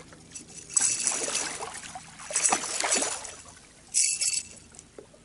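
Hooked redfish splashing and thrashing at the water's surface beside the boat, in three bursts: about a second in, about two and a half seconds in and a shorter one about four seconds in.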